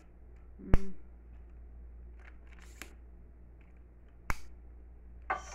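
Sharp plastic-and-metal clicks from a lightweight aluminium tripod's leg-lock clips as its telescoping legs are pulled out and locked: two loud snaps about three and a half seconds apart, with a few faint ticks between and more clicking at the end.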